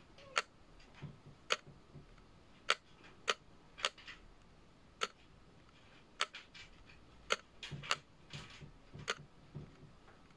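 Irregular sharp clicks, about fifteen over ten seconds with no steady rhythm, and a few soft low thumps among them.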